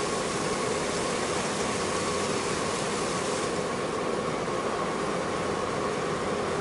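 Boat engine running with a steady drone under a hiss of wind and water. The hiss eases slightly about three and a half seconds in.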